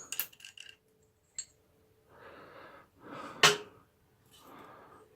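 Sharp metallic clicks and taps from clutch parts and a washer being handled on a motorcycle's open clutch, the loudest a single sharp click about three and a half seconds in. Soft breathy noises come between the clicks.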